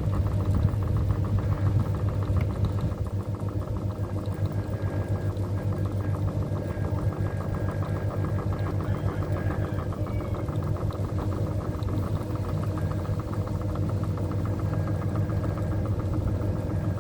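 Ceiling fan running steadily: a steady motor hum with a fast, even pulsing over it.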